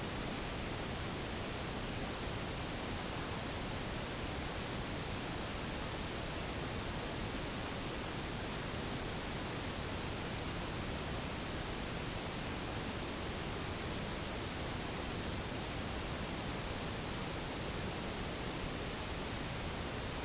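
Steady, even hiss with no distinct calls or events, like a recording's background noise floor.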